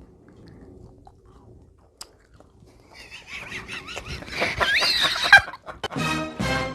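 Faint chewing of a sour Coca-Cola bottle gummy sweet. About three seconds in comes a louder noisy stretch with high, wavering squeal-like tones, and music starts near the end.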